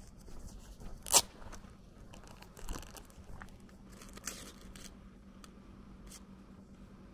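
Footsteps crunching on a dirt-and-gravel lane: a few slow steps, the loudest a sharp crunch about a second in, over a faint steady low hum.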